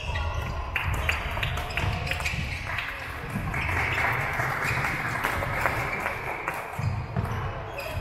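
Badminton rackets hitting shuttlecocks and players' feet on a wooden court floor, a scatter of sharp strokes over the hum of a large, echoing sports hall.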